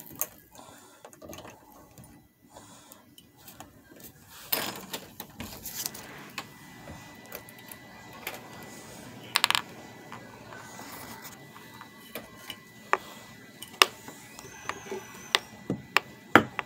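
Scattered clicks, knocks and scraping rustles from small objects being handled by hand, with a cluster of sharp ticks near the end.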